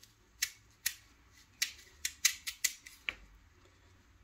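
Kitchen knife cutting through a raw sweet potato held in the hand: a run of about eight short, crisp clicks as the blade snaps through the firm flesh, several close together, stopping about three seconds in.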